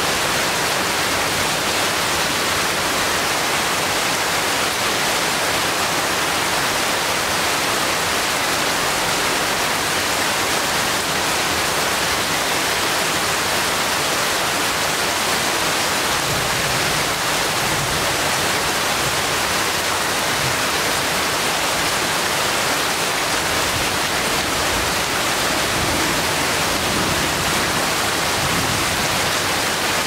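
Steady heavy rain falling on forest foliage, an even hiss with no pauses.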